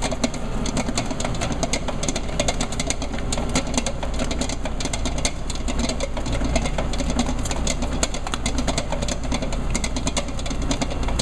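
Commercial stand mixer with a wire safety guard running, kneading stollen dough: a steady low motor hum under a dense, irregular clatter of clicks and knocks.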